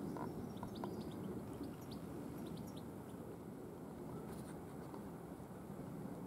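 Birds chirping in short high calls over the first three seconds, over a steady low rumble of wind and sea.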